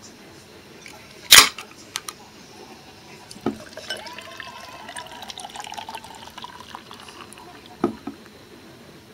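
A can of beer cracked open with a short, loud hiss about a second in, then poured into a glass, the pouring sound rising in pitch as the glass fills. There is a knock before the pour and another near the end.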